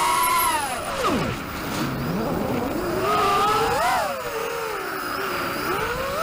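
Racing quadcopter's brushless motors (2204 2300kv) spinning tri-blade props, whining with throttle: the pitch drops steeply about a second in as the throttle is cut, then climbs to a peak around four seconds in and falls again.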